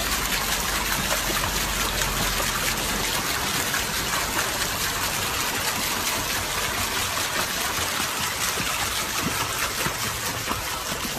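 Swimming-pool water splashing and trickling, a steady rushing sound with no break.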